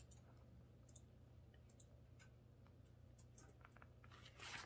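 Near silence: faint scratching and small clicks of a pen drawing on notebook paper, with a soft paper rustle near the end.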